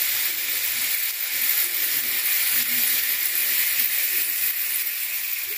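Homemade cardboard-tube rain stick with nails inside, its filling of green lentils and small pasta shells trickling down in a steady, even hiss that fades a little near the end.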